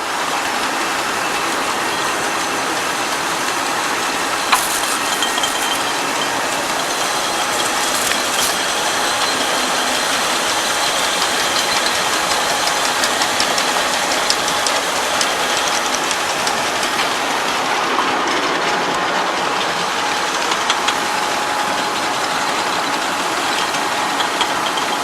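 Glass bottle washing machine running steadily, its motor spinning rotary stainless steel brushes that scrub bottles and strip off the labels, with a faint steady hum and scattered clicks and knocks of bottles; one sharper click comes about four and a half seconds in.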